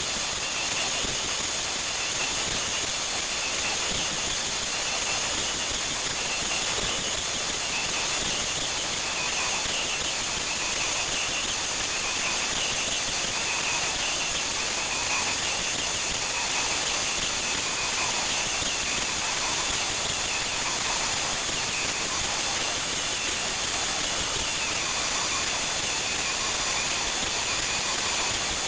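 MDF rose engine lathe running a helical cut: the cutting frame's spinning cutter and three stepper motors give a steady high whine over a hiss, with a faint wavering in the whine as the cut goes on.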